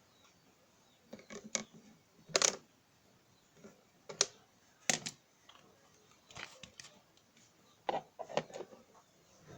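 Irregular clicks and knocks of small hard parts being handled, in scattered clusters, with the sharpest knocks about two and a half and five seconds in.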